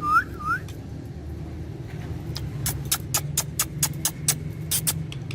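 A steady low mechanical hum underneath. Three short, curved chirps come right at the start, and a quick run of sharp clicks follows in the second half.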